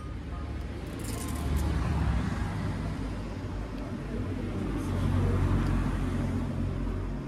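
Steady low rumble of a moving vehicle, swelling a little about two seconds in and again near five seconds.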